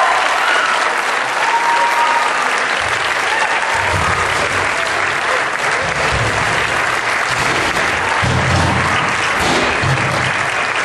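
Audience applauding steadily, with the last musical note fading in the first couple of seconds.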